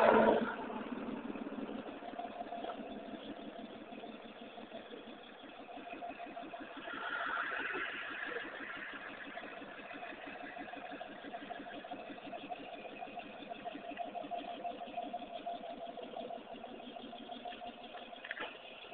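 Jeep engine idling steadily, an even run of firing pulses.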